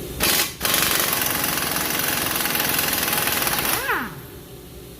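Power impact wrench with a 21 mm socket loosening a brake caliper bolt: a short blip, then a steady hammering run of about three seconds, ending with the motor winding down in a falling whine.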